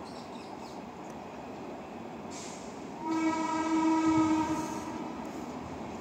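Train horn sounding one blast of about two seconds, starting halfway through, over steady background noise.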